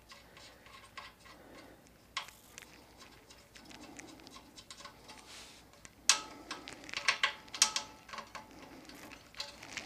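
Small metal clicks and clinks of hands handling motorcycle exhaust-valve cable ends and a nut at their bracket, with a cluster of sharper clicks about six to eight seconds in.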